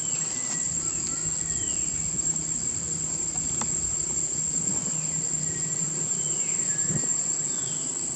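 Steady high-pitched drone of insects, with short high calls that fall in pitch every second or two and a low hum underneath.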